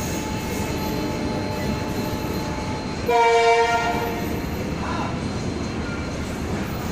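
Empty car-carrier freight wagons rolling past fast, a steady rumble of wheels on the rails. About three seconds in, a train horn blows once for about a second, louder than the passing wagons.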